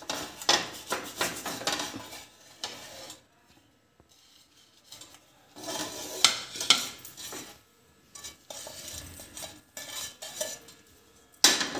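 Kitchen utensils clattering and scraping against a frying pan and plates, in short bursts of clicks and knocks with a quiet stretch about three seconds in and a sharp knock near the end.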